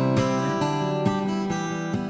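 Intro music of strummed acoustic guitar, slowly fading out.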